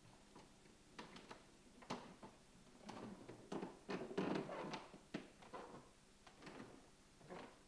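Footsteps of someone walking down a staircase, a string of soft, uneven knocks and creaks, busiest in the middle.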